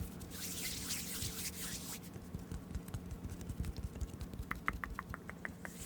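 Close-miked ASMR trigger sounds: a soft breathy rustle for about two seconds, then scattered small clicks ending in a quick run of about eight short ticks near the end.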